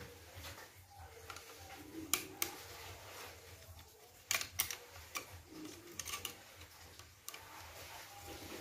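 A handful of sharp clicks and taps, several in quick pairs, from a screwdriver and fingers working the screws of a two-gang wall switch plate as it is taken off.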